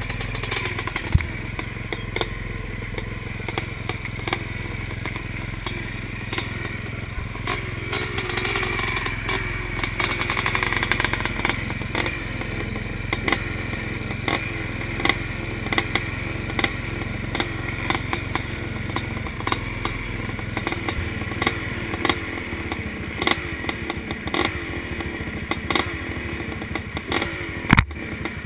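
Several classic motocross bikes' engines running at a start gate, idling and being blipped, with a rev rising and falling about eight to eleven seconds in. The nearest engine is heard from its own handlebars. A sharp knock comes near the end.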